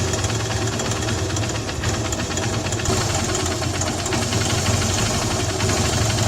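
Hero Honda CBZ Xtreme's 150 cc single-cylinder four-stroke engine running steadily, with a fast, even mechanical ticking over a low hum. The valve tappets have just been tightened, and the tappet noise is judged much reduced.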